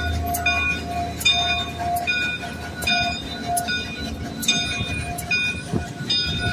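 Locomotive bell ringing about once a second over the low rumble of a passing train.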